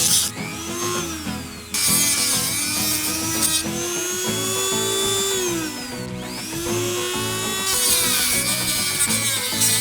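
Handheld rotary tool (Dremel) running and cutting LEGO plastic, its motor whine sliding up and down in pitch as the bit is loaded and eased off, with stretches of gritty cutting noise.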